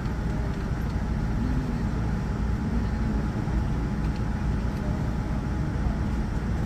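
Steady cabin noise inside a Boeing 787-9 Dreamliner moving slowly on the apron: an even low rumble with air hiss and a faint steady whine.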